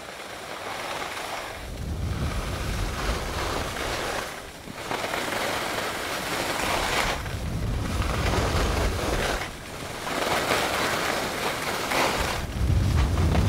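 Skis hissing and scraping over groomed snow while skiing downhill, with wind rushing on the camera's microphone. The noise swells and eases every two to three seconds, with short dips between the swells.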